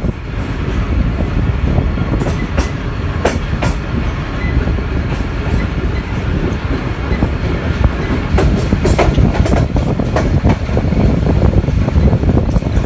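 Karachi Express passenger train running at speed, heard from on board: a steady low rumble with irregular clicks and knocks of the wheels over rail joints, clustered a couple of times.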